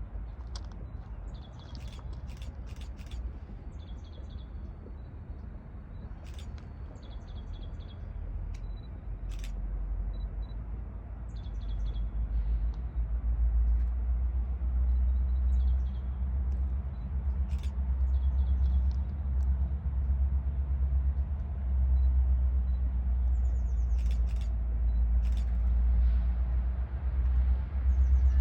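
A low, steady vehicle rumble that grows louder about halfway through, with birds chirping now and then.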